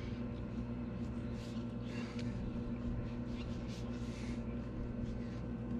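Faint scrapes and light taps from hands turning and handling a jaw crusher's V-belt pulley, over a steady low hum.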